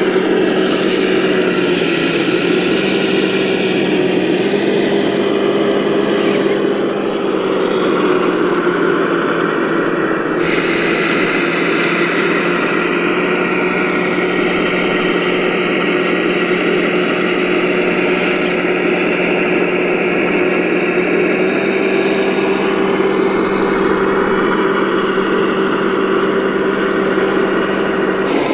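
Radio-controlled 8x8 military truck model running, a steady engine-like drone that holds one low pitch.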